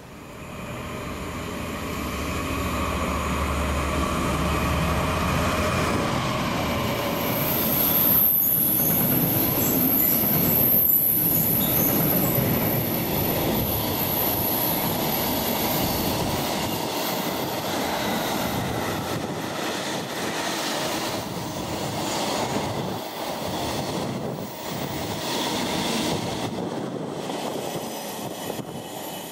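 A train passing, growing louder over the first few seconds, with a high-pitched wheel squeal for several seconds in the middle and a long run of wheel-on-rail rattles as it goes by.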